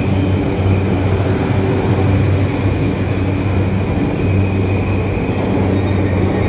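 JR Yamanote Line E235-series electric commuter train running alongside the platform, a steady low hum and rumble with a steady high whine over it.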